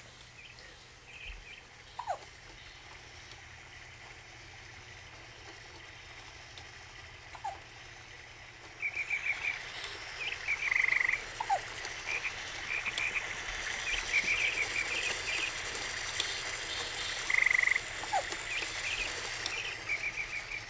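Baby hiccupping: a short, sharp, falling squeak every few seconds, four times. From about halfway on, rapid high-pitched chirping trills run alongside.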